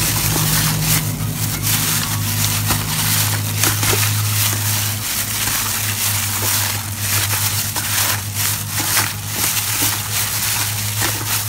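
Plastic bag worn as a glove crinkling and rustling in irregular bursts as a hand kneads marinade into raw pork small intestines in a stainless steel bowl. A steady low hum runs underneath.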